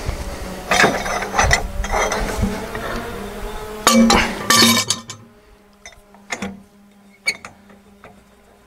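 Metal clanking and knocking of portable sawmill hardware as a log is set against the back posts: a run of clanks, a few loud sharp knocks about four seconds in, then scattered light clicks.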